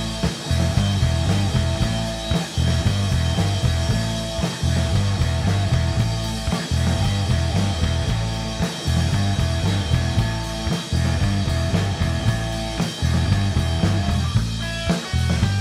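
Live rock band playing electric guitar, electric bass and drum kit, with a heavy, shifting bass line under steady drumming.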